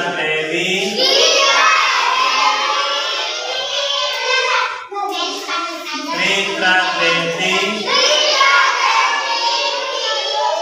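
A group of young children chanting loudly in unison, in a classroom recitation, with short breaks about four and five seconds in.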